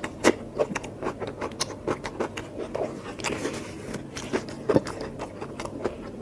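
A person chewing a mouthful of mutton curry close to the microphone: a quick, uneven run of wet mouth clicks and smacks, with a brief scraping rustle about three seconds in.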